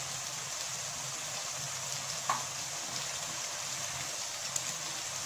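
Lamb brain curry sizzling steadily in its oil in a karahi, the vegetables' water cooked off, with a couple of faint light ticks as green chilies are scattered over it.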